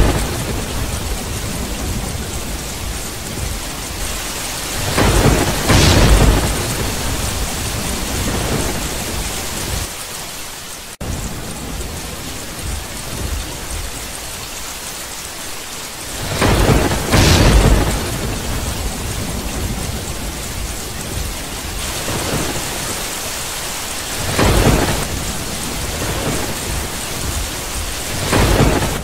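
Steady rain with thunder rumbling four or five times, each roll swelling and dying away. The rain thins and then cuts back in abruptly about eleven seconds in.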